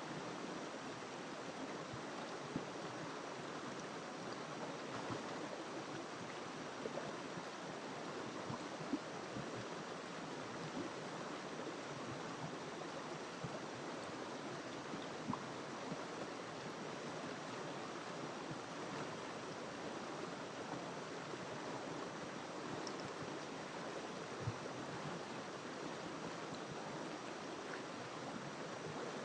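A river flowing steadily, an even rushing water noise with a few brief faint clicks now and then.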